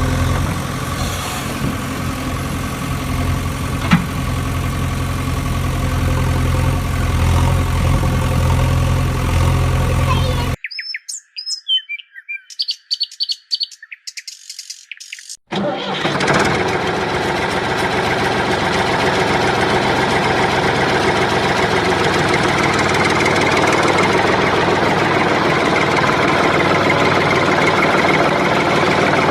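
Engine running steadily at a low idle. About ten seconds in it cuts out for a few seconds, leaving only high, chirping, clicking sounds, and then a busier, noisier engine sound takes over and runs on.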